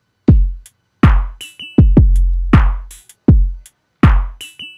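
Teenage Engineering OP-1's drum machine playing an electronic beat: deep kick drums with long booming tails, crisp hi-hat and snare hits, and short high electronic blips, in a pattern that repeats.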